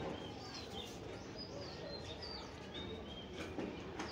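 Small birds chirping, a scatter of short high chirps repeated many times over a faint steady background noise.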